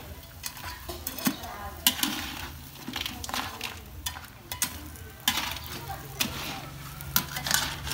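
Long metal spatula scraping and clanking against a steel wok as whole crabs are stir-fried, the hard shells knocking against the pan in irregular sharp clicks and scrapes.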